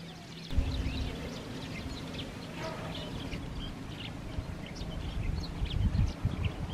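Outdoor ambience: small birds chirping over and over in short high calls, above a low rumble that starts about half a second in and turns gustier near the end.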